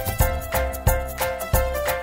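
Upbeat background music with a steady beat and a bright melody.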